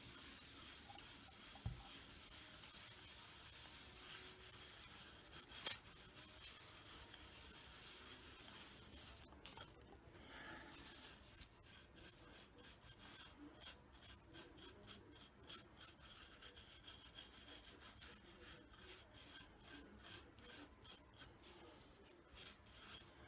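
Faint rubbing as a cloth wipes liquid antique wax over a V-carved oak board, with a sharp click about six seconds in. From about halfway, a toothbrush scrubs the wax into the carved grooves in quick, repeated back-and-forth strokes, about two or three a second.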